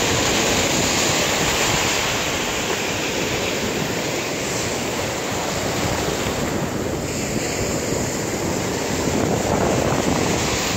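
Ocean surf: waves breaking and washing in over the shallows, a steady loud rush of white water.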